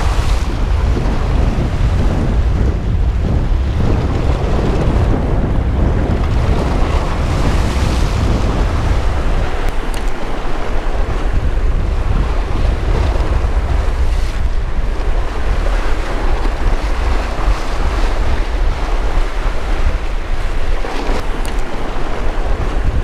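Wind buffeting an action camera's microphone over surf washing against sea rocks, one steady rush of noise. The low rumble of the wind is heaviest for the first several seconds.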